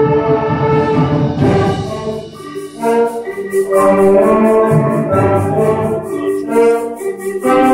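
School concert band of woodwinds and brass playing: held chords, a softer moment about two seconds in, then the band comes back in over a fast, even ticking of high percussion.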